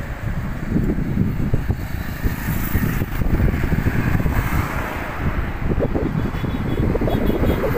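Wind buffeting the microphone, over the steady noise of road traffic going past.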